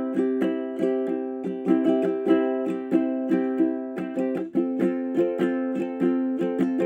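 Background music: a light instrumental of plucked strings in a steady rhythm, changing chord about two-thirds of the way through.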